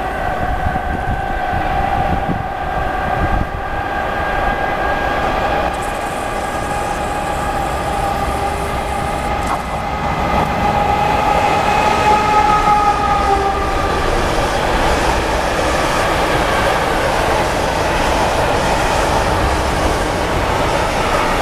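An electric locomotive hauling a freight train of open wagons approaches and passes. A steady whine of several tones comes from the locomotive and fades about two-thirds of the way through. It gives way to the steady rumble and rattle of the freight wagons rolling by.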